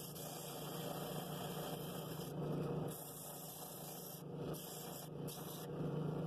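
Drill press running an inflatable drum sander, a steady motor hum under the hiss of the abrasive sleeve sanding a cherry bowl. The hiss drops out for brief moments a few times as the bowl is shifted on the drum.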